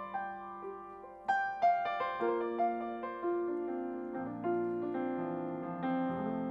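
Grand piano played solo in a jazz style: single melody notes struck and left to ring over held chords, with lower bass notes joining about four seconds in.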